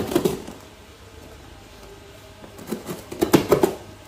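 A cardboard parcel being handled and turned on a tiled floor: a burst of knocks and scrapes at the start, then another cluster from about two and a half to four seconds in.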